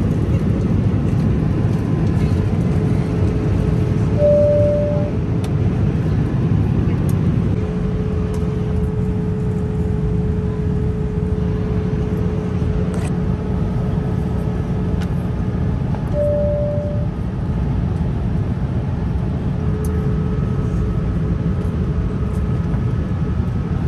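Airliner cabin noise in flight: a steady low rumble and rush of the jet, with a faint steady hum. A short single tone sounds twice, about twelve seconds apart.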